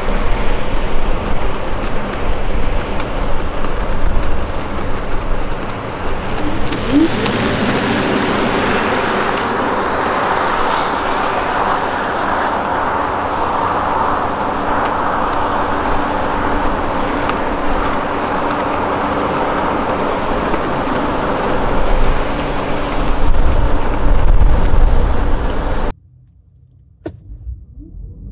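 A Cupra Born electric hatchback pulling away hard from a standstill for a 0–100 km/h run, heard from outside. There is no engine note, only a steady rush of tyre and road noise, and it cuts off suddenly near the end.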